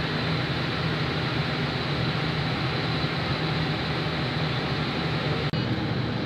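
Steady wind and engine noise on the open deck of a moving passenger ferry, with a deep steady rumble underneath, broken once by a very short dropout about five and a half seconds in.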